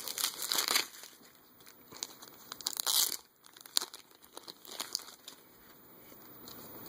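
Packaging crinkling and tearing as a wrapped trading card is unwrapped by hand, in rustling bursts at the start and again about three seconds in, with small crackles between.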